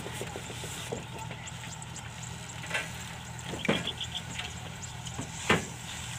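An engine running steadily at a low hum, with a few short knocks over it, the loudest near the end.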